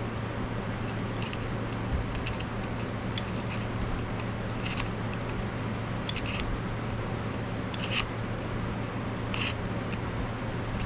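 A few short metallic clicks and scrapes, spaced a second or two apart, as a bolt is threaded in by hand and vise parts are handled. A steady low hum runs underneath.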